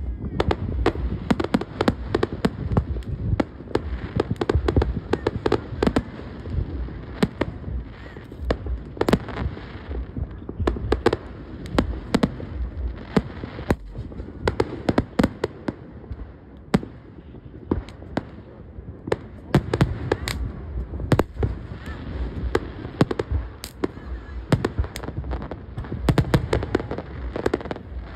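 Aerial fireworks display: shells bursting in a dense, irregular run of sharp bangs and crackles, many each second, over a continuous low rumble of booms.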